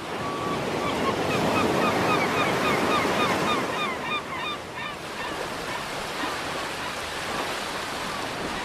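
Surf washing steadily on a beach, with a flock of birds calling over it in quick, short cries during the first five seconds or so.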